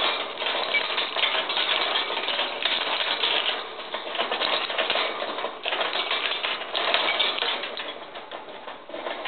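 Rapid, continuous clicking and rattling from degus playing with their cage toys. The clatter eases off a little near the end.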